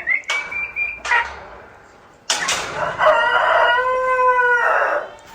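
A rooster crowing once, one long call of about two and a half seconds, beginning a little over two seconds in. A high, thin peep sounds near the start.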